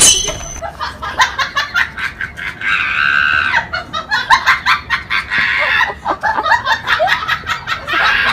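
Laughter in quick, choppy cackling bursts, repeated without a break.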